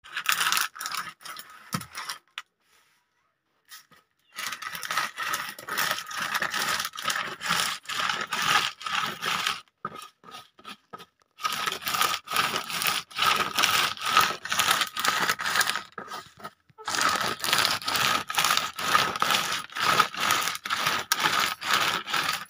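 Close, scratchy scraping and rustling full of small crackles. It breaks off for about two seconds starting two seconds in, and briefly twice more later.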